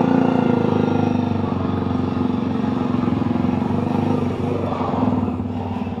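Motorcycle engine running steadily.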